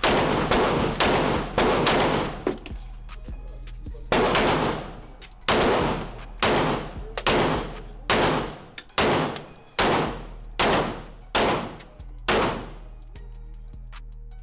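Gunshots at a shooting range: a string of about fifteen shots, each sharp crack with a short echoing tail. There is a pause a few seconds in, and the shots stop near the end.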